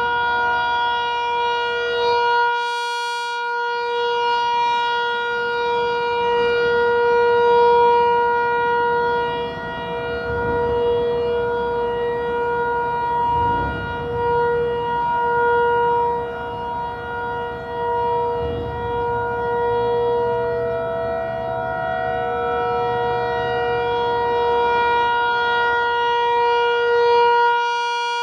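Federal Signal 508-128 rotating dual-tone electromechanical siren sounding its steady Alert signal, a loud held chord with no rise or fall in pitch. The sound swells and fades as the rotating horn sweeps around, turning brightest and harshest about three seconds in and again near the end as the horn faces the listener.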